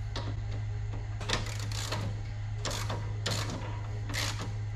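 Ratcheting wrench clicking in short bursts, one every half second to a second, as a 3/4-inch nut on the mower deck's lift bolt is run tight. A steady low hum lies beneath.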